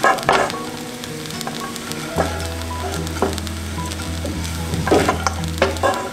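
A spatula stirring and scraping through fried rice in a hot non-stick wok, with a light sizzle and several separate strokes. Soft background music with held notes plays underneath.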